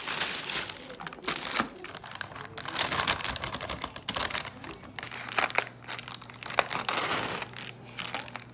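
Thin plastic carrier bag and plastic film crinkling and rustling in irregular bursts as sealed takeout food trays are unpacked by hand and the film on a tray is picked at.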